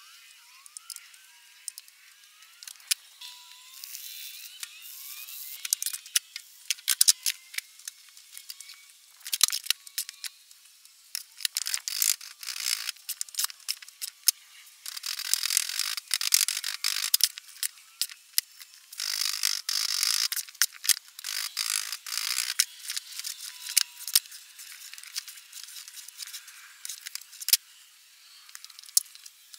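Bursts of scraping and rustling with scattered sharp clicks and taps: hand work on a foundry sand mold being packed around a pattern. Faint bird chirps can be heard in the first few seconds.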